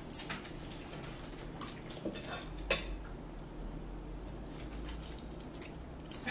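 Metal forks clinking and scraping against dinner plates as two people eat, a handful of scattered light clicks, the sharpest about two and a half seconds in.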